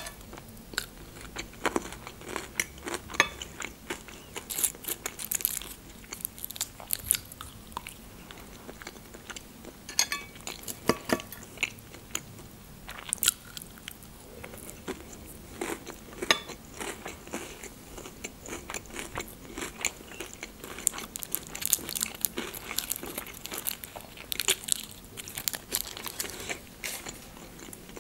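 Close-miked eating: a person chewing and biting into fried eggs with crunchy croutons, with many short crunches throughout.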